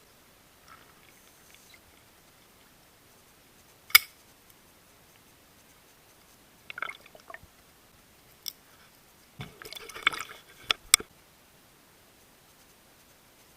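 Scattered sharp clicks and knocks heard underwater. There is one loud click, then a short crackle about halfway through, then a cluster of clicks and knocks a few seconds later.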